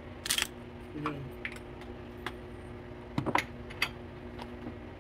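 Scattered light clicks and short rasps from pepper being added over a plate of fish teriyaki, over a steady low hum.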